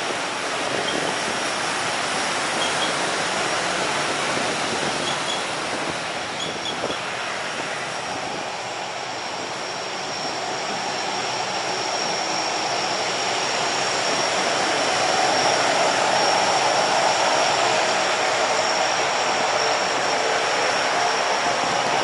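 Lockheed C-130 Hercules' four Allison T56 turboprops running as the aircraft taxis: a steady high whine over a broad rush of propeller and engine noise. It grows louder about two-thirds of the way through as the plane comes closer.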